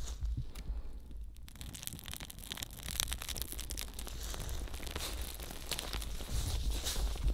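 A strip of bark, lit from campfire embers, crackling as it burns in open flame, a dense fast crackle starting about a second and a half in, over a low rumble.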